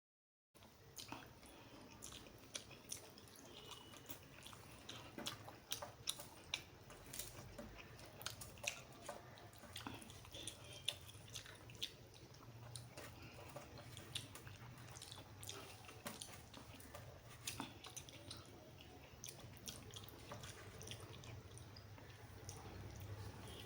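Close-miked chewing of rice and curry, with wet, irregular mouth clicks and smacks over a low steady hum, starting about half a second in.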